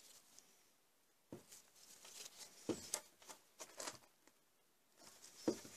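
Faint handling sounds of a plastic brake fluid reservoir being wrestled off an old brake master cylinder by gloved hands, after its retaining pins are out: rubbing and scraping with several sharp knocks, the loudest near the end.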